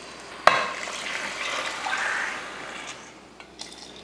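Water poured from a steel mug into a pressure cooker of rice and masala, splashing for about two and a half seconds before fading. A sharp click about half a second in, as the pouring starts, is the loudest moment.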